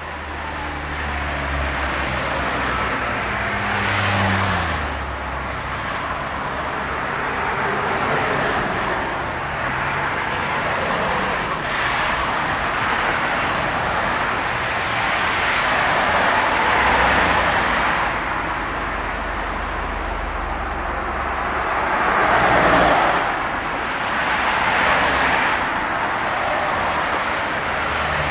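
Road traffic: a steady wash of car engines and tyre noise, with individual cars passing by every few seconds.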